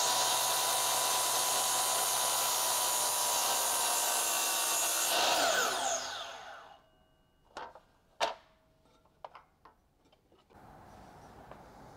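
DeWalt sliding compound miter saw running and cutting a 45-degree miter through a hardwood molding. About five seconds in the motor is released and the blade spins down with a falling whine. A few light clacks follow as the saw head and workpiece are handled.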